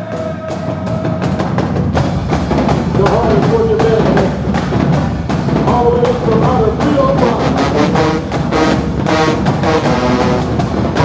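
Show-style marching band playing, with drums keeping a steady beat under sustained horn notes. The full band comes in louder about two seconds in.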